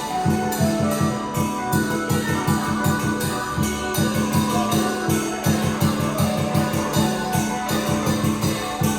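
Chinese dragon-dance music: a drum beating a fast, steady rhythm under ringing metallic percussion and held melodic tones.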